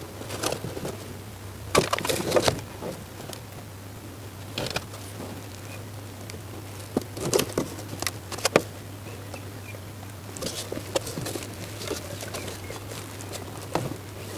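Plastic seedling trays and leafy cabbage seedlings being handled and lifted: scattered light clicks, knocks and rustles, a few at a time, over a steady low hum.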